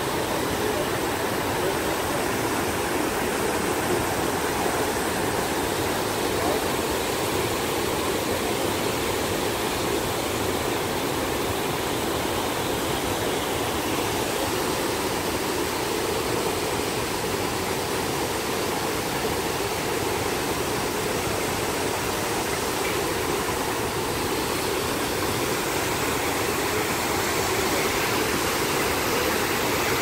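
Niagara Falls: a huge volume of water pouring over the brink and crashing into the river below, heard close up as a steady, unbroken rush.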